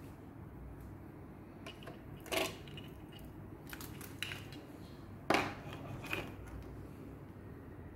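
Small hard objects being handled on a wooden tray: a few short clinks and clatters, the loudest a little past five seconds in as a wristwatch is picked up.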